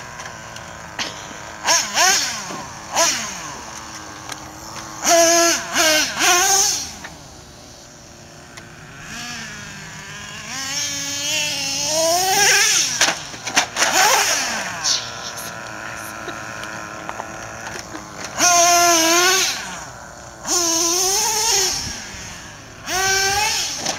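Traxxas Revo 3.3 RC truck's small two-stroke nitro engine revving up and down in repeated bursts of throttle as the truck is driven, with quieter lulls where it drops back between the loud revs.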